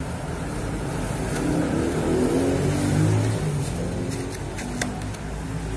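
Road traffic: a motor vehicle's engine running with a steady low hum that swells about three seconds in, and a few short clicks between four and five seconds in.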